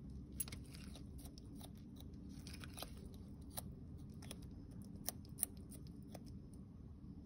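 Bearded dragon biting and chewing shredded carrot and lettuce: a series of irregular crisp crunches. The loudest come as a pair about five seconds in.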